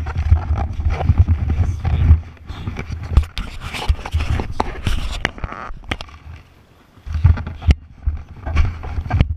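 Handling noise from an action camera being moved and set down in dry grass: rubbing and scraping against the housing with irregular sharp knocks and clicks, and low rumbling buffets that ease off for a moment in the middle and return near the end.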